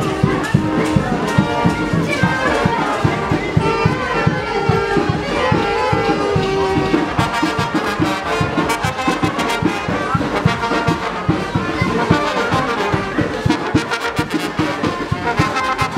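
Brass band playing a lively tune over a steady, fast drumbeat, with sharper percussion strokes in the second half.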